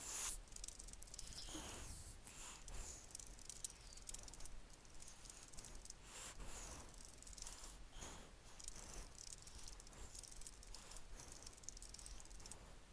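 Typing on a computer keyboard: a quick, uneven run of quiet key clicks.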